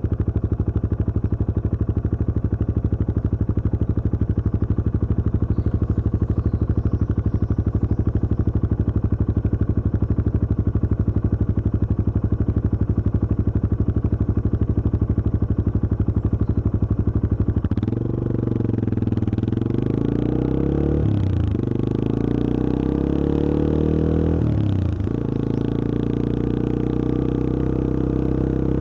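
Yamaha XT225 Serow's air-cooled single-cylinder four-stroke engine running steadily with even firing pulses. About two-thirds of the way in it revs up and pulls away, with two gear changes, then settles into steady running.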